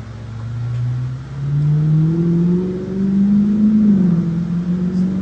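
A motor vehicle engine revving up, its pitch rising steadily for about three seconds, dipping briefly, then holding at a steady higher speed.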